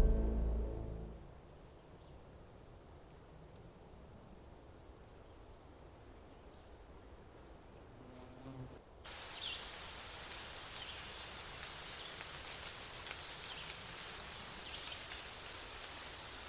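Insect ambience: a steady, high-pitched cricket trill, with the tail of a deep boom dying away in the first second. About nine seconds in it cuts abruptly to a fuller, hissier insect bed with faint chirps over it.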